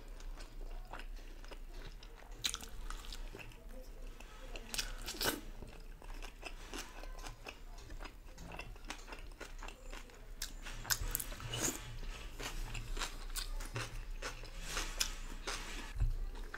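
Crunching and chewing of a crispy fried chicken spring roll, with irregular sharp crackles, getting denser in the second half.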